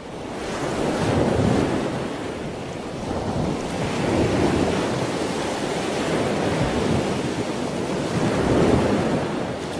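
Ocean surf washing steadily, swelling louder every three to four seconds as waves break.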